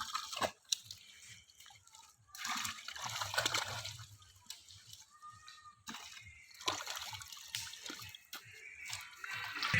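Pond water splashing and dripping in irregular bursts, with quieter pauses between.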